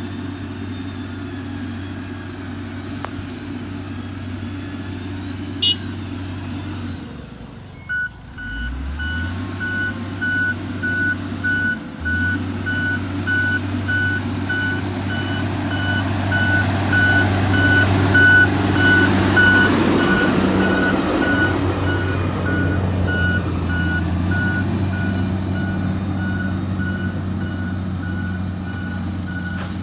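Motor grader's diesel engine running, dropping away briefly and then picking back up with load. Its reversing alarm then beeps in a steady pulse, while the engine grows louder and then eases off.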